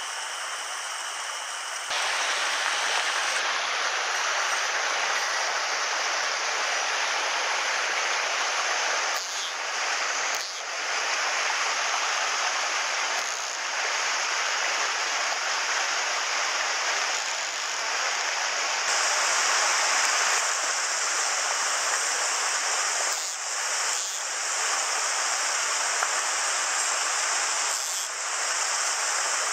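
Mountain headwater stream rushing over boulders and small cascades: a steady rush of water that steps up in loudness about two seconds in.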